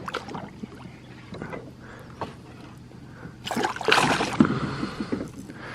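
Water sloshing and light knocks at the side of a canoe, then a louder splash about three and a half seconds in as a hooked largemouth bass is brought alongside to be landed.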